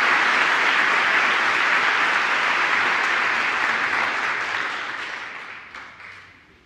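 Audience applauding, dying away over the last two seconds with a few last scattered claps.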